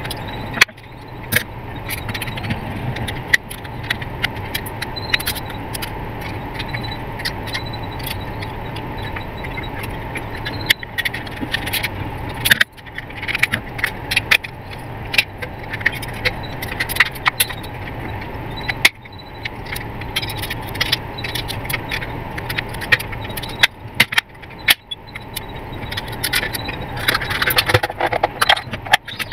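Irregular plastic clicks, taps and rattles from the parts of a Mastech MS2128A clamp meter being handled and fitted back together (circuit board, clamp jaw and plastic case). The clicks come thicker near the end, over a steady low background hum.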